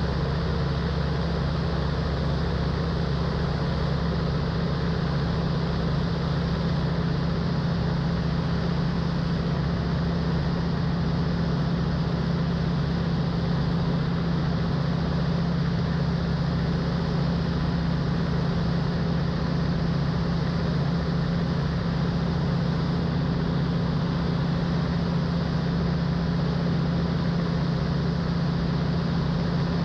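Van's RV-12 light aircraft's Rotax 912 engine and propeller running steadily, a constant drone with no change in pitch or level.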